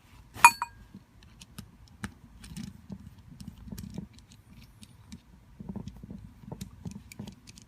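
Small metal tools and regulator parts being handled: one sharp metallic clink that rings briefly about half a second in, then scattered light clicks and rustling, as a hex key is found and the seat is fitted.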